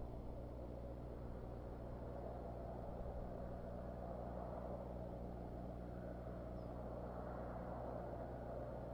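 Steady low hum and rumble picked up by an outdoor nest-camera microphone, with a band of noise that swells slightly about halfway through.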